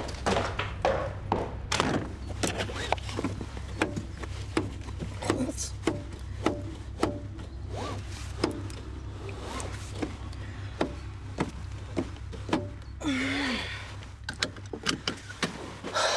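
Low, steady road rumble inside a moving car, with frequent small clicks and knocks throughout.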